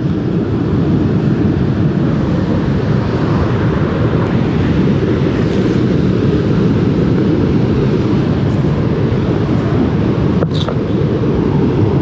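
Wind rumbling on the microphone over beach surf, a steady low noise with one brief sharp click near the end.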